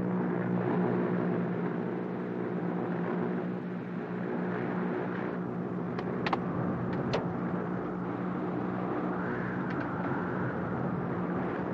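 Bellanca light plane's piston engine and propeller droning steadily at a constant pitch in cruise, with a couple of short sharp clicks around the middle.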